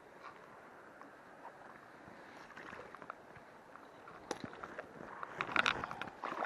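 Water sloshing and splashing close to the microphone, with a few knocks; it grows into its loudest burst of splashing and clicks near the end.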